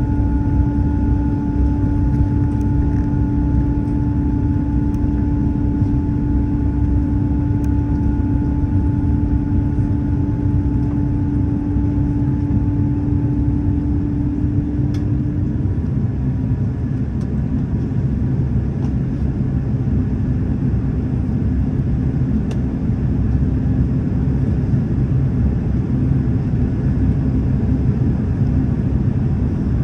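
Airliner cabin noise during the approach: a steady low rumble of jet engines and airflow. A steady hum runs through it and stops about halfway, leaving a fainter, slightly lower hum.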